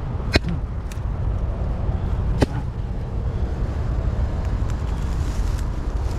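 Steady low outdoor rumble, with sharp clicks: one under half a second in, a fainter one about a second in, and another about two and a half seconds in.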